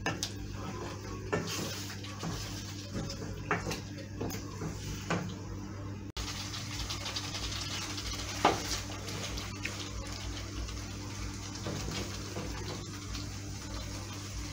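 Wooden spoon stirring chicken stew in a thick sauce in a frying pan, with scattered knocks and scrapes of the spoon against the pan over a steady low hum.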